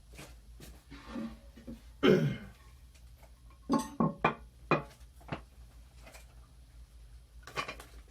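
Handling noise: a scrape about two seconds in, then a quick run of sharp knocks and clinks with a short ring to them, and two more near the end.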